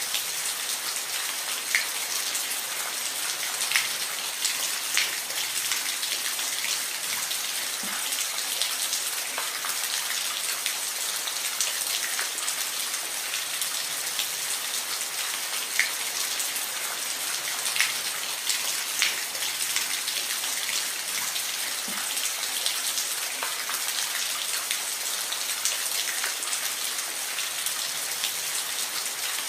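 Steady rain falling, an even hiss with scattered louder individual drops ticking on a surface.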